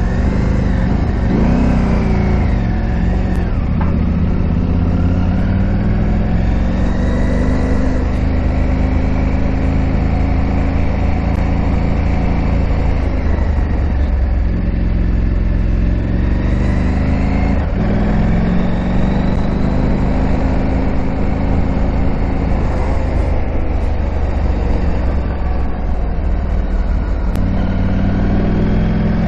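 KTM 890 Adventure R's parallel-twin engine running while riding, its pitch climbing and dropping several times with throttle and gear changes, over a constant low rumble.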